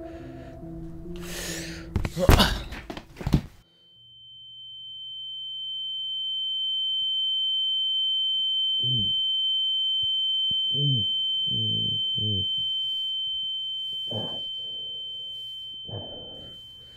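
Film sound design: a loud sudden hit about two seconds in cuts off the music, then a steady high-pitched ringing tone over a low hum, like ringing in the ears, with a few muffled gasping breaths under it.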